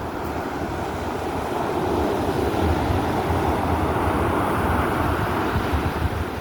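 Stormy sea surf rushing steadily, with wind buffeting the microphone in low, irregular thumps; the wash of the waves swells a little about two seconds in.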